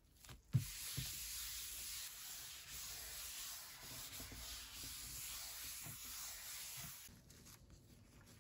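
A Lysol disinfecting wipe rubbed across a desk surface, a steady scrubbing hiss that stops about seven seconds in. It follows two soft knocks in the first second, the first the loudest sound.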